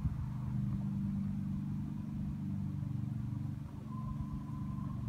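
A steady low engine drone in the background, like a motor running at constant speed, with a faint thin higher tone joining about four seconds in.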